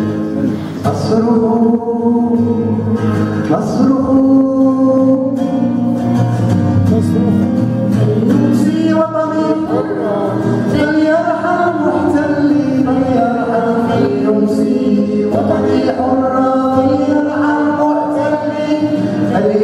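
Live song: a young girl sings a melody into a microphone, accompanied by a plucked string instrument.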